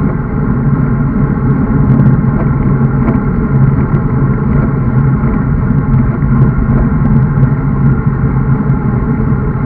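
Wind rushing over the microphone of a camera mounted on a road bike riding at speed, mixed with tyre noise on asphalt: a loud, steady low rush with an even hum under it and a few faint clicks.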